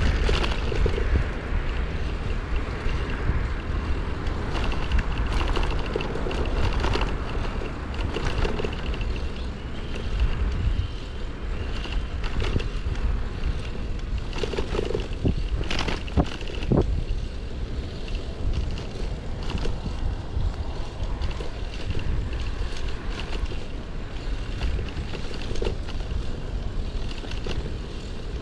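City street ambience on a walking camera: wind rumbling on the microphone over the steady noise of traffic, with a few short knocks a little past halfway.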